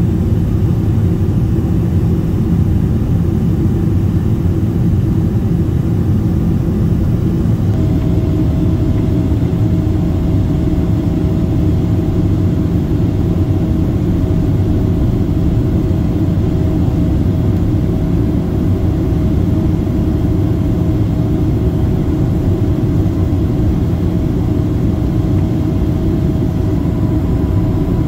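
Jet airliner cabin noise at a window seat over the wing: the steady roar of the Boeing 767-400's General Electric CF6 turbofan engines and the airflow in flight. A steady hum joins in about eight seconds in.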